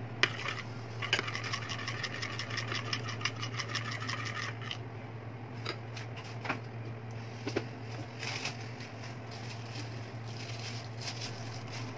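Metal spoon beating thin flour batter in a ceramic bowl: a fast, even run of scraping clicks for about three and a half seconds, then a few scattered taps, over a steady low hum.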